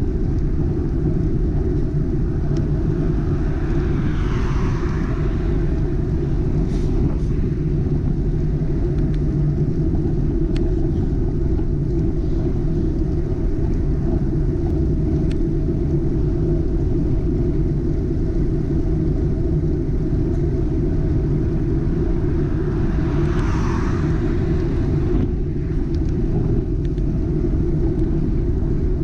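Steady wind rumble on a bicycle-mounted action camera's microphone while riding on a road. Two motor vehicles overtake, their tyre hiss swelling and fading about four seconds in and again about 23 seconds in.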